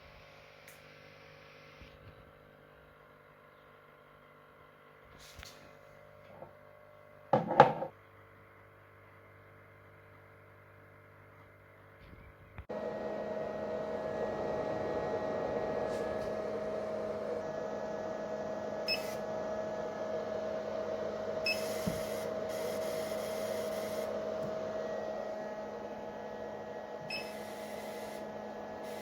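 50-watt CO2 laser tube making noise: a faint steady hum, then a short loud burst about a quarter of the way in. Before halfway a much louder steady hiss with a hum in it starts suddenly and keeps going.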